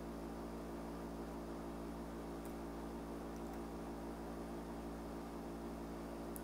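Steady electrical hum with a faint buzz of even tones, and two faint clicks, about two and a half seconds in and near the end.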